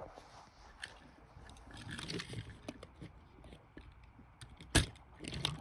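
Small toy engines being handled and pushed together to couple them: light clicks, knocks and scraping, with one sharp click near the end.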